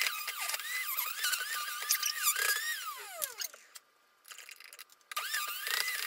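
Electric juicer motor whining at high speed, its pitch dipping and recovering over and over as vegetables are pressed down the feed chute against the spinning blade. About halfway the whine falls away, there is a lull of about a second and a half, and then it picks up again.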